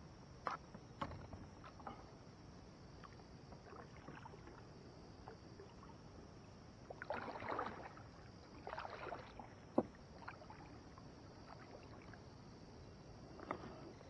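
Kayak on the water, with two splashy paddle-like swishes in the middle and scattered light knocks and clicks on the hull. A single sharp knock comes just after the second swish, over a steady faint high-pitched hiss.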